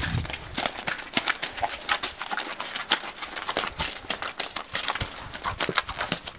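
Horse's hooves striking a gravel and dirt paddock as it moves under a rider: a rapid, uneven clip-clop of sharp hoof clicks.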